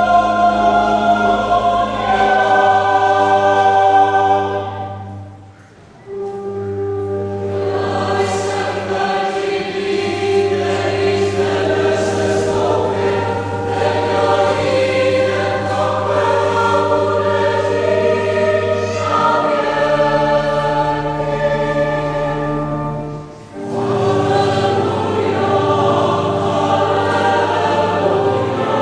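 Church choir singing a hymn in long held phrases. There is a break about five seconds in and a short breath around 23 seconds.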